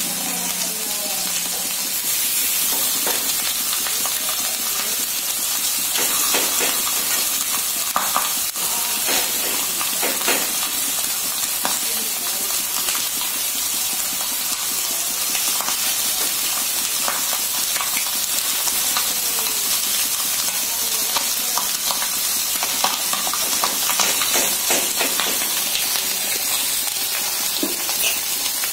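Masala-coated fish pieces shallow-frying in hot oil on a flat tawa: a steady sizzle with scattered pops and crackles.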